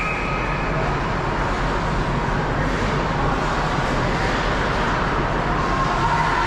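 Steady ice-rink ambience during a youth hockey game: a continuous rumble and hiss of the arena with a low hum underneath, and a high steady tone that stops within the first second.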